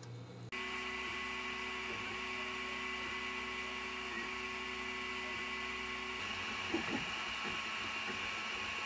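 Original Prusa i3 MK2 3D printer running a print: a steady motor and fan whine made of a few held tones with a hiss above. About six seconds in the steady tones give way to short whirs that rise and fall in pitch.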